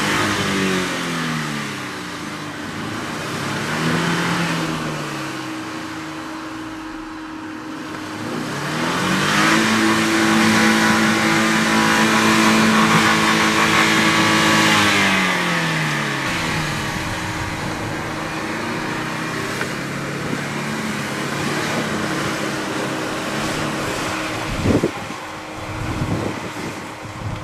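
Vehicle engine revving up and down several times, its pitch climbing and falling, with a long high rev held through the middle. A couple of sharp knocks come near the end.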